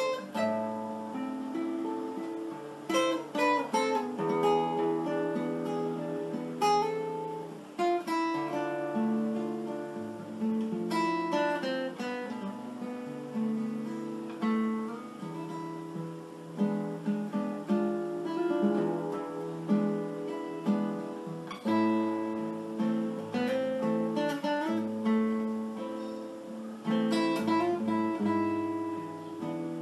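Background music: acoustic guitar strumming and picking chords, with a regular rhythm of strummed attacks.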